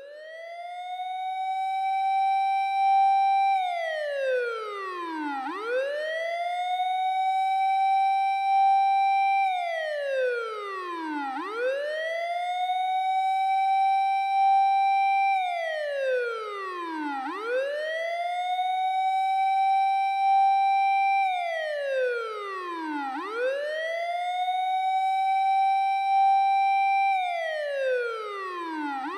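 Japanese fire engine siren played by a siren app, on its 6-second cycle: a wail that rises to a held high tone, falls away, and starts rising again, about five times over.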